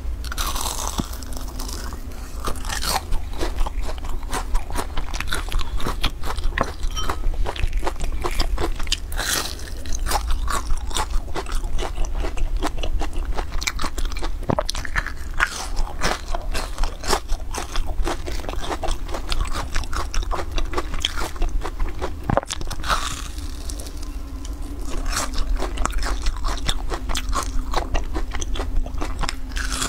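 Close-miked crunching and chewing of deep-fried, crumb-coated glutinous rice cakes (ciba): a dense run of crisp crackling crunches as the fried crust is bitten and chewed.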